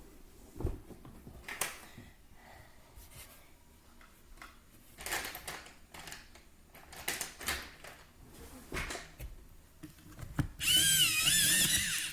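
Crayon rubbing on paper in short scratchy strokes. Near the end, a much louder whirring noise with a wavering pitch sets in and lasts about a second and a half.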